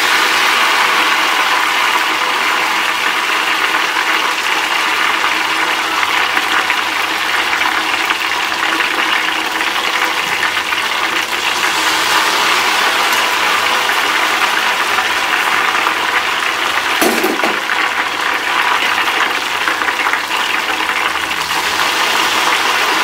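Ghevar batter frying in very hot ghee in a steel pot: a loud, steady sizzle as the thin stream of batter hits the fat and it foams up. A brief clunk comes about three quarters of the way through.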